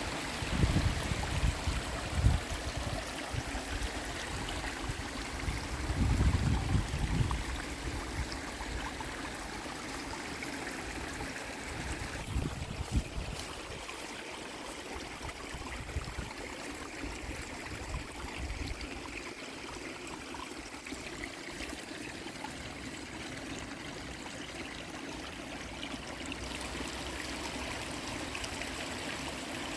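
Shallow river water flowing and trickling steadily, with short bouts of low rumble in the first couple of seconds and again about six seconds in.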